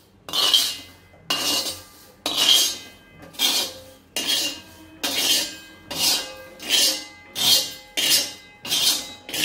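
A steel spoon scraping across an iron tawa in repeated strokes, about one a second, sweeping warmed sesame and poppy seeds off the griddle into a bowl.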